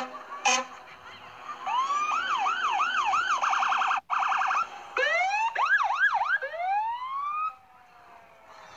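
Fire truck electronic siren cycling through quick rising yelps and a fast warble, with a brief cut-out about four seconds in, then more sweeps and a final long rising wail that fades out near the end. Two short blasts open it.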